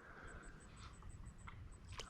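Near silence: faint creekside ambience with a few small ticks.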